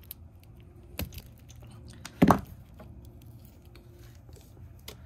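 Pliers and hands working a plastic wiring connector to pull a wire free: light clicks and rustling, with one loud, sharp sound a little over two seconds in.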